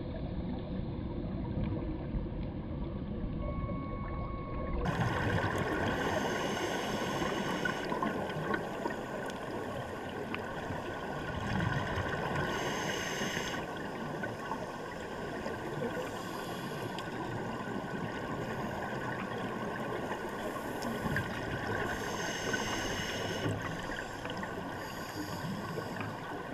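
Underwater ambience heard through a dive camera's housing: a steady muffled rush of water, with scuba regulator exhaust bubbles gurgling in short bursts every few seconds.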